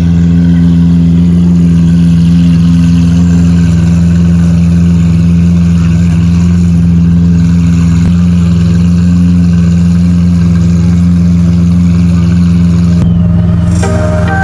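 Car engine idling steadily with a loud, deep exhaust drone that holds one pitch, shifting slightly near the end.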